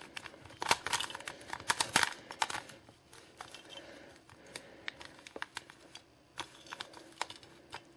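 A plastic Rubik's Cube being turned quickly by hand, its layers clicking and clacking in irregular runs as a move sequence is carried out. The clicks come thickly at first and more sparsely after about three seconds.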